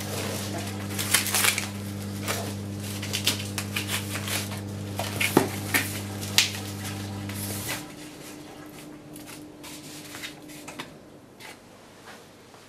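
Plastic film crackling and crinkling as it is peeled off a plastic meat tray and handled. A steady low hum runs underneath and cuts off about two-thirds of the way through.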